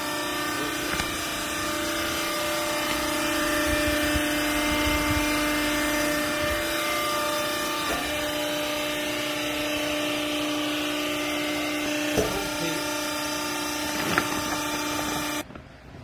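Hydraulic power unit of a clothes baling press running with a steady hum, with a few light knocks, then switched off suddenly near the end.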